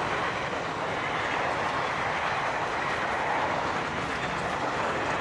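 Boxcars and louvre vans of a fast freight train rolling past, a steady rush of steel wheels on the rails.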